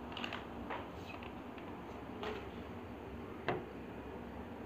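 Light, scattered clicks of metal side cutters shifting against a die-cast toy car's wheel axle, with one sharper click about three and a half seconds in, over faint room hiss.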